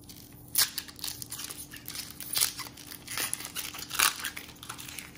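Foil wrapper of a trading card pack crinkling as it is torn open by hand, in irregular crackles with three sharper ones, about half a second, two and a half seconds and four seconds in.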